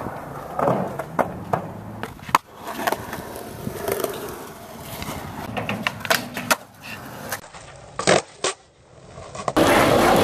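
Skateboard rolling on concrete, with a series of sharp clacks from the tail popping and the board landing during tricks. Near the end, a louder steady rolling noise.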